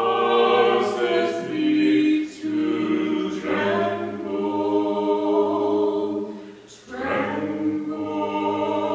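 Mixed vocal quartet of two women and two men singing a slow sacred song in four-part harmony. The notes are long and held, with brief breaks between phrases about two and a half seconds in and again near seven seconds.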